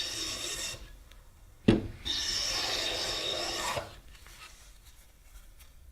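A hand tool scraping along wood in two long strokes: the first ends about a second in, then a sharp knock, then a second stroke of nearly two seconds.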